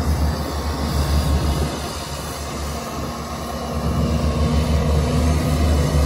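Heavy diesel earthmoving machinery engine running with a low rumble, growing louder with a steady engine note about four seconds in.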